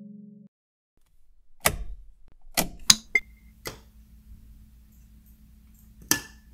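Soft background music cuts off. Then about six sharp clicks and knocks come irregularly over about five seconds, over a low steady hum.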